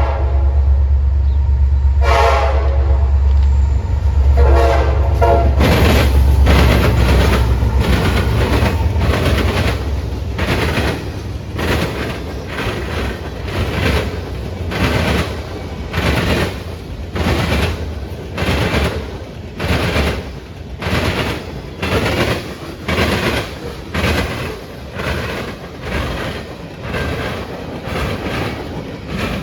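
Diesel train passing close by: the locomotive horn sounds twice, a long blast about two seconds in and a shorter one about four seconds in, over a deep engine rumble. The cars then roll past with a steady clickety-clack of wheels over rail joints, about one clack a second.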